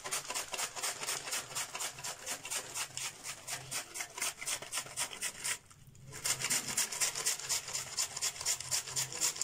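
Cabbage being shredded on a handheld plastic mandoline slicer: fast, even rasping strokes of the blade, about five a second, with a brief pause about five and a half seconds in.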